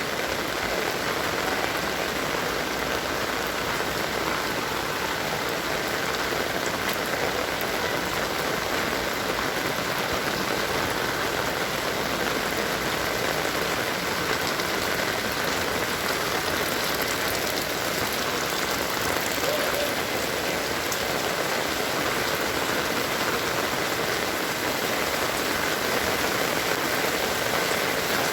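Heavy rain falling steadily, a dense even hiss of drops hitting surfaces.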